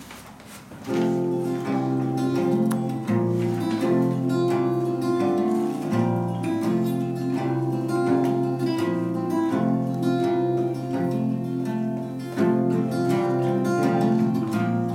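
Two acoustic guitars, a nylon-string classical guitar and a capoed steel-string guitar, playing an instrumental duet of plucked, flowing notes, starting about a second in.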